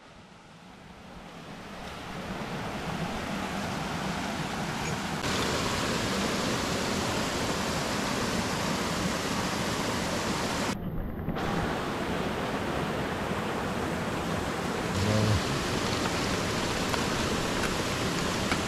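Steady rush of flowing river water, fading in over the first few seconds, with a brief dip in the hiss about eleven seconds in.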